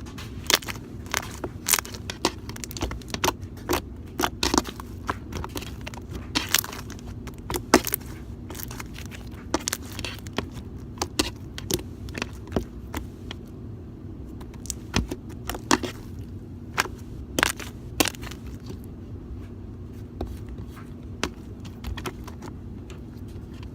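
Jiggly glue-and-borax slime squeezed and worked by hand, giving irregular sharp clicks and pops, often several a second, with a few quieter stretches. A steady low hum runs underneath.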